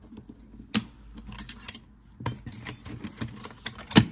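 A metal retaining bracket being pried out of an Apple USB SuperDrive's casing with a thin pry tool. It gives a series of sharp clicks and scrapes, the loudest just before the end as the bracket comes loose.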